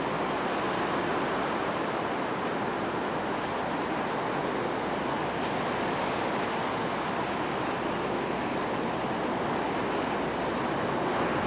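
Ocean surf washing on a beach, a steady, unbroken rush of water noise.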